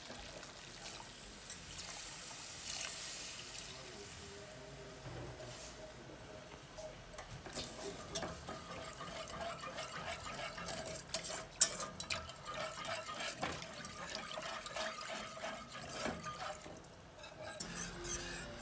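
Milk poured into a steel saucepan of butter-and-flour roux, then a wire whisk clicking and scraping against the pan as the white sauce is whisked smooth, with many quick clicks in the second half.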